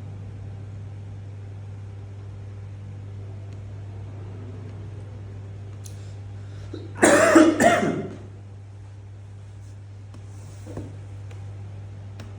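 A person coughing: one short burst of a few quick coughs about seven seconds in, over a steady low hum.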